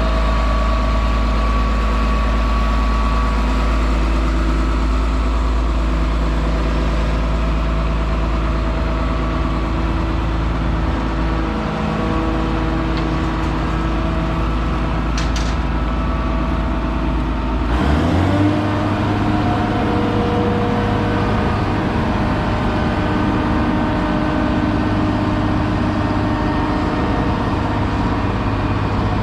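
Farm engines at a grain bin running steadily during soybean unloading. About 18 seconds in, a deep drone stops and an engine rises in pitch, then settles into a steady idle.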